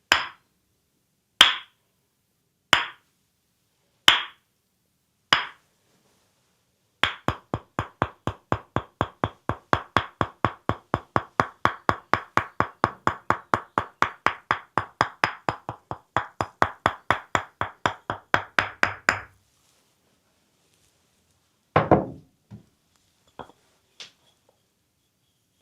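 Percussive hand massage on the leg: sharp single slaps about every second and a half, then a fast, even run of chopping strikes, about four a second, for some twelve seconds, stopping suddenly. A couple of duller, lower knocks follow later.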